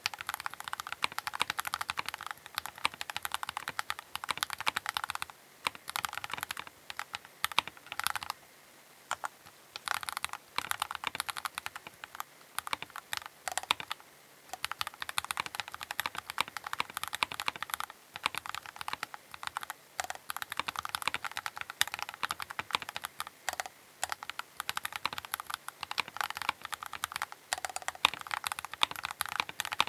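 Keychron K8 Pro mechanical keyboard being typed on quickly and continuously: a dense run of key clacks with a few brief pauses.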